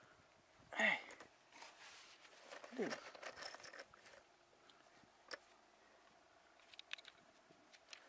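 Movement on a ribbed steel roof panel: a few short creaks that drop sharply in pitch, some scuffing, and one sharp click about five seconds in.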